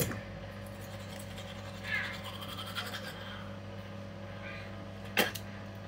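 Teeth being brushed by hand with an electric toothbrush whose motor is dead: soft scrubbing of bristles against teeth, with a couple of sharp clicks, one near the end. A steady low hum runs underneath.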